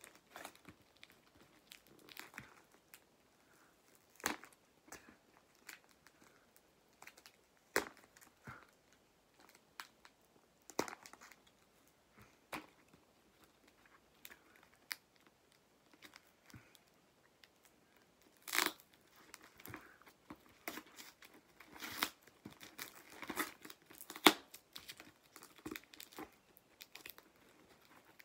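Sticky tape being picked at and peeled off a small cardboard box by hand: irregular tearing and crinkling with scattered sharp snaps, busier toward the end. The tape is stubborn and hard to rip off.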